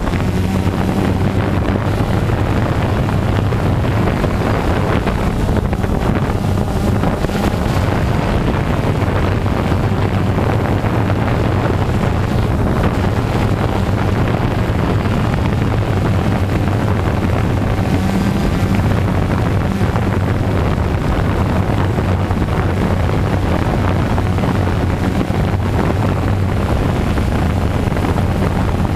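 DJI Phantom 2 quadcopter's brushless motors and propellers, a steady droning hum heard from the camera slung beneath it, with wind noise on the microphone.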